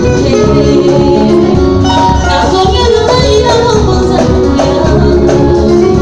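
Loud live band music: electric guitar, bass guitar and drum kit playing together without a break.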